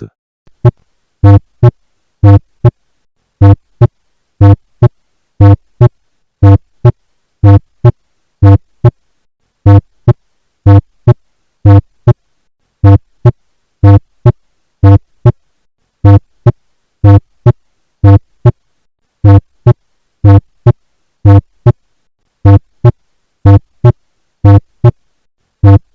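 Heart sounds repeating about once a second as a lub-dub. Each first sound is split into two close parts, mitral then tricuspid closure, and is followed by a single second sound. This is a split S1, a finding associated with right bundle branch block.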